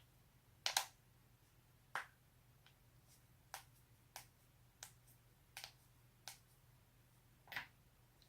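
Spinal joints cracking: a series of about eight short, sharp pops at uneven intervals, the loudest about a second in and near the end.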